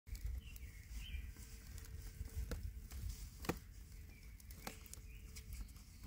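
Quiet outdoor ambience: a low rumble, a few faint bird chirps, and three or four sharp little clicks, the loudest about halfway through.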